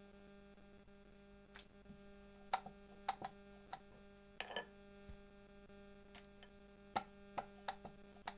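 Wooden rolling pin knocking and clacking on a round wooden rolling board as dough is rolled out: faint, irregular sharp knocks, one or two a second, with a short flurry about halfway through. A steady electrical hum runs underneath.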